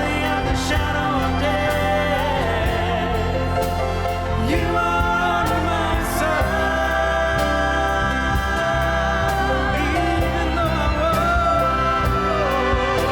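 Choir singing with orchestral accompaniment in a slow worship arrangement, with long held notes.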